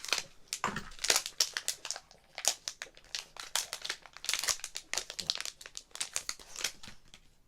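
Blind-box pin packaging being crinkled and rustled by hand as it is opened: a dense run of irregular crackles that stops shortly before the end.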